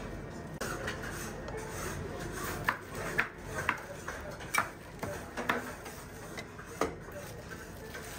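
Large knife chopping down through a crisp pistachio pastry onto a wooden cutting board: about six sharp strikes, half a second to a second apart, starting a few seconds in, over a low steady murmur.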